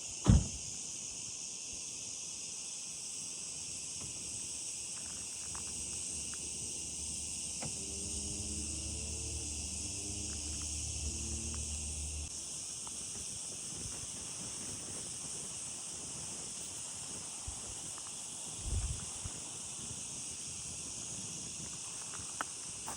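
Steady high-pitched chorus of insects outdoors. A sharp knock comes just after the start and is the loudest sound. A low hum with a pitch rises from about 8 to 12 seconds in, and a softer thump comes near 19 seconds.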